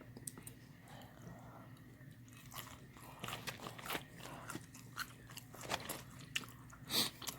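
Close-miked eating sounds: someone biting and chewing Chick-fil-A fried chicken, with scattered short wet clicks and crunches, the loudest about seven seconds in.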